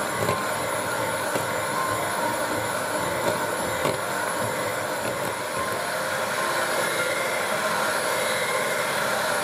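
Electric hand mixer running steadily, its twin beaters whipping heavy cream in a plastic bowl.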